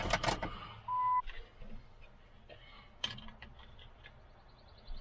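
A single short electronic beep about a second in, amid scattered clicks and knocks of handling.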